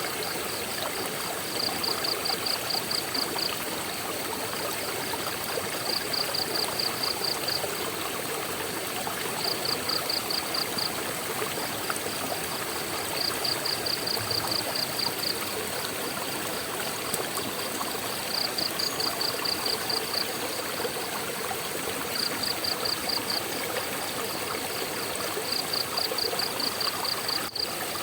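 Steady rush of a waterfall's flowing water. A high, rapid chirping trill breaks in over it in short bursts about every three to four seconds.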